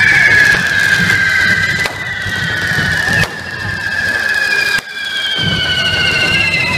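Hand-held pyrotechnic fountains spraying sparks with shrill whistles, several at once, each slowly falling in pitch, over a fizzing hiss. A few sharp cracks cut in.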